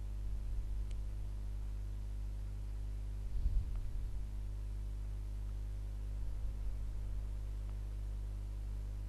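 Steady low hum with no speech, with a brief low rumble about three and a half seconds in.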